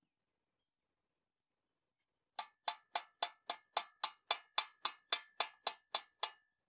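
A steady run of about fifteen sharp metallic taps, a little over three a second, with a faint ringing tone held through them. They start about two seconds in.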